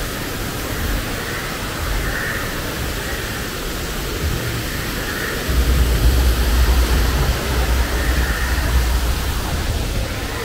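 Steady rush of running water from a rocky stream and small waterfalls. A low rumble grows stronger about halfway through.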